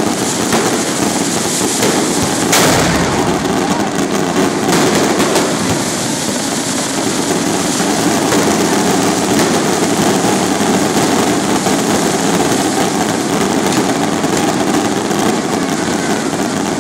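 A dense, continuous barrage of aerial fireworks: a steady mass of crackling and hissing from many rockets going off at once. A sharper bang stands out about two and a half seconds in, and a smaller one near five seconds.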